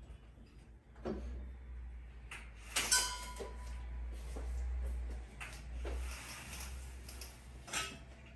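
A few knocks and clinks of household objects being handled, the loudest about three seconds in with a short ringing tone, over a steady low hum.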